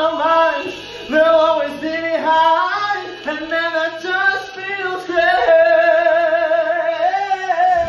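A man singing solo in sustained sung phrases, ending on a long held note.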